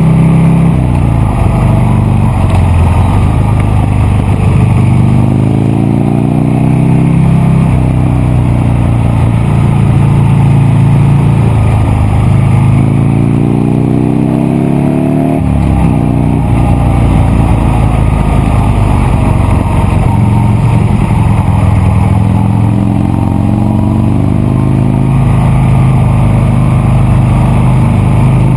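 Buell Lightning XB9SX's 984 cc V-twin engine running under way, loud throughout. The revs climb in long rising sweeps, once a few seconds in and again about halfway, and drop off sharply at the end of the second sweep.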